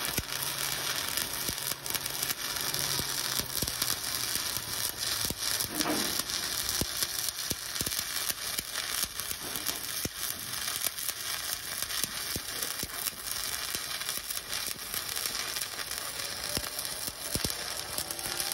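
Stick welding arc burning a 7018 electrode on a vertical-up weld: a steady crackle and sizzle dotted with frequent sharp pops. The arc is held short and tight, which keeps the spatter down.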